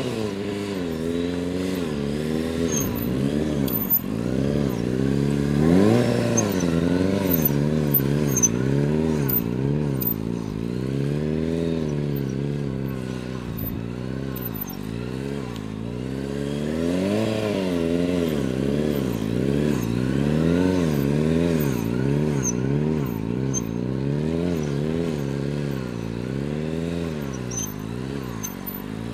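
Motorcycle engine held in a slow wheelie, its revs rising and falling about once a second as the rider works the throttle to keep the front wheel up.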